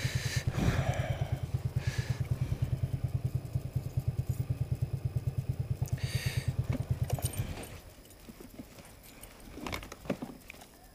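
Honda C50 moped's small single-cylinder four-stroke engine idling with a fast, even putter, then switched off about seven and a half seconds in. A few faint clicks and rustles follow.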